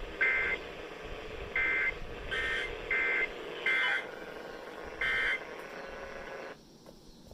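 Emergency Alert System digital data bursts over a radio: six short two-tone squawks, each about a third of a second, the end-of-message code that closes an alert. Radio hiss underneath drops out sharply about six and a half seconds in.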